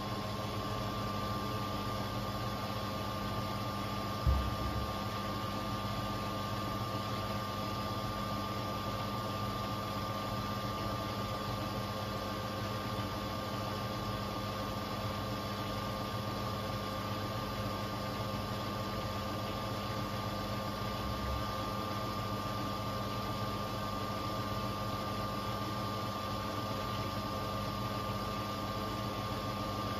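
Beko WTK74011W front-loading washing machine spinning its drum at speed, with a steady motor whine and hum that steps up slightly in pitch right at the start. One short thump about four seconds in, and a faint knock later on.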